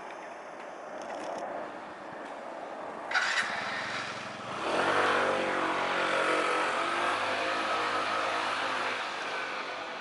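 Street traffic hiss. About halfway through, a motor vehicle's engine comes in close and runs on with a fairly steady note.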